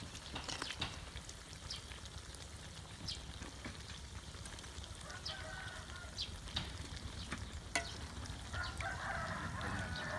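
Flour-battered banana pieces deep-frying in oil in a wok: a steady sizzle, with sharp clicks now and then as metal tongs lift pieces out onto a steel tray. A rooster crows near the end.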